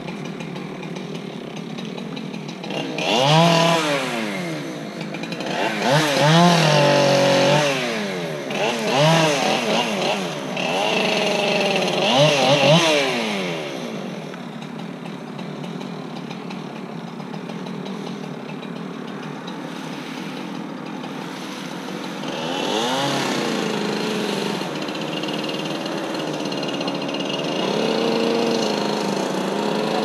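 Chainsaw engine revving up and down in a series of rising and falling sweeps through the first half, then running more steadily, with a few more revs later on.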